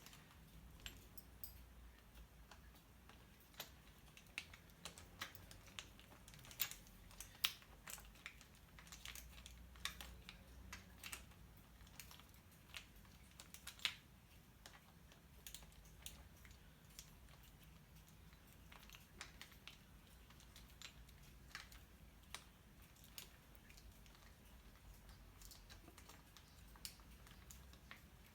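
Near silence with faint, irregular light clicks and taps of tools and metal hardware being handled, more frequent in the first half, over a low steady hum.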